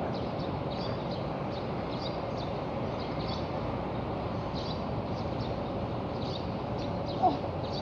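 Steady outdoor background noise with faint short high chirps recurring, and one brief sharp squeak about seven seconds in.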